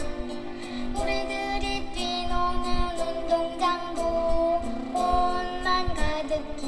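Singing of a Korean children's song about flowers: a single melody line of held notes that step up and down in pitch.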